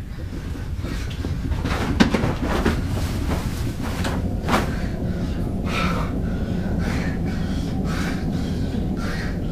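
Rummaging in a cluttered wooden wardrobe: things shifted and rustled, with sharp knocks about two seconds and four and a half seconds in, over a steady low background rumble.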